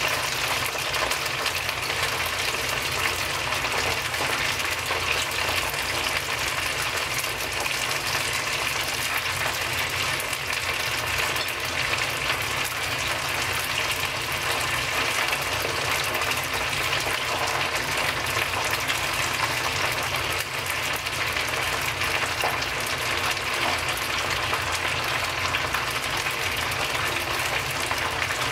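Karaage (Japanese fried chicken) deep-frying in a pot of hot oil: a steady, dense crackling sizzle of bubbling oil that stays the same throughout.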